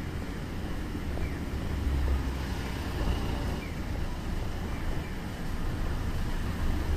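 City street traffic: cars and a bus running past on the road, a steady noisy wash with a heavy low rumble that swells a couple of seconds in.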